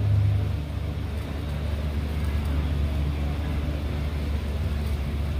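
A steady low engine rumble, even and unbroken.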